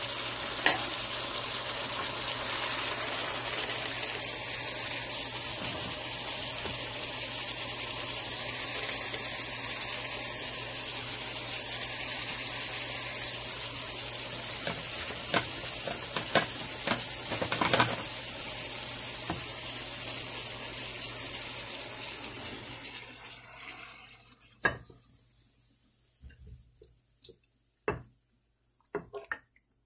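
Steady sizzling hiss of a mutton and potato curry cooking down in its pot, which dies away about three quarters of the way through. Then a few short soft wet squishes and taps as the thick curry is spooned into a serving dish.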